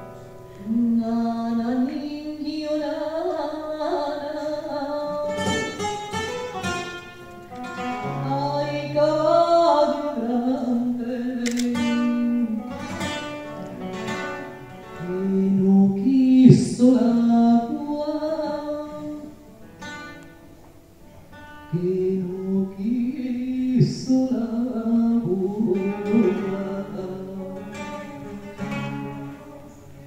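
A woman singing a slow song in long held notes with a wavering pitch, accompanied by a plucked classical guitar. The singing drops away briefly past the middle, then resumes.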